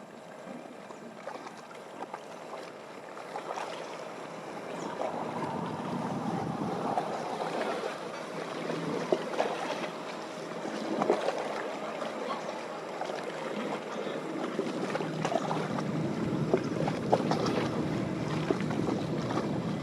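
Jet airliner on final approach to land, its engine noise growing steadily louder from a few seconds in, with wind noise on the microphone.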